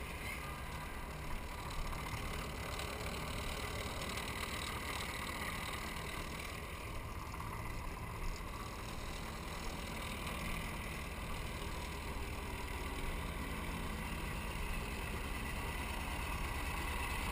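GM V8 diesel engine of a 1982 GMC feed truck idling steadily while still cold.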